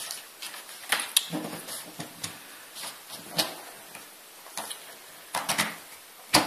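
Plastic extension lead and its cable being handled and coiled: a series of irregular clicks and knocks, with the sharpest near the end.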